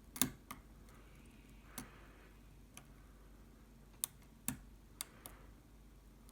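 Sparse small metallic clicks and ticks from a lock pick and tension wrench working the barrel-spool top pins of a Trioving Twin Control (twin combi) lock, about eight clicks at uneven intervals, the sharpest just after the start.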